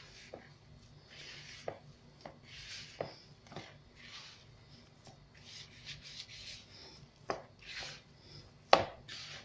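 A hand working a crumbly cocoa and margarine dough in a plastic bowl: repeated soft rubbing and squishing strokes, with a few sharp knocks, the loudest near the end.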